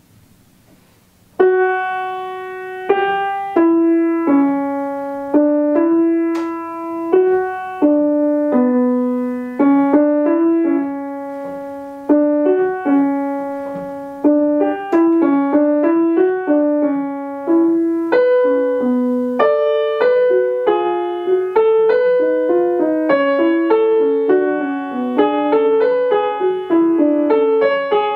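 Grand piano played solo: a chord dies away into a short pause, then a slow melody with accompaniment begins about a second and a half in, the notes coming faster in the second half.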